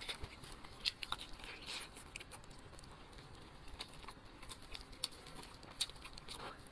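Eating sounds: braised meat torn from the bone by plastic-gloved hands and chewed, an irregular scatter of small wet clicks and smacks with the crinkle of the gloves.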